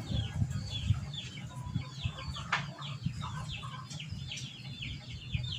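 Birds chirping busily, a steady stream of short falling peeps, over low irregular bumps, with one sharp click about two and a half seconds in.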